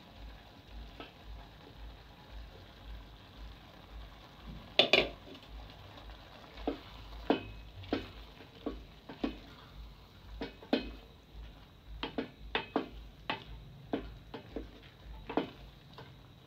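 Wooden spoon stirring peas and potatoes in a metal cooking pot, knocking against the pot's sides every half second to a second. There is one loud clatter about five seconds in.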